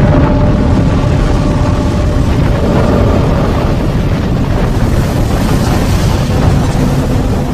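Loud, steady rumbling roar of a cinematic sound effect for two planets colliding, heaviest in the low end, with faint held tones beneath.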